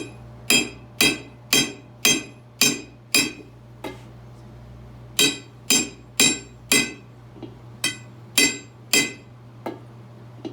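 Hammer blows on a 1929 Packard's steel split rim, about two ringing metallic strikes a second with a pause of about two seconds partway through, beating the rim and tire a little at a time to work them into place.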